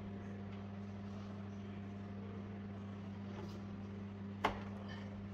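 Steady low hum, with one short sharp knock about four and a half seconds in.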